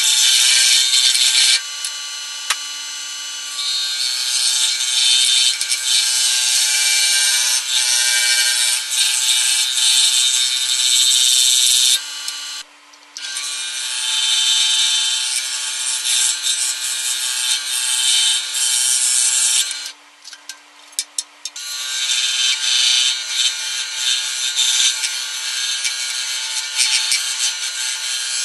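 Scroll saw running with its reciprocating blade cutting through a block of wood: a steady motor hum under the loud hiss of the cut. The cutting noise drops away twice, about midway and again a few seconds later, for a second or so while the saw keeps running.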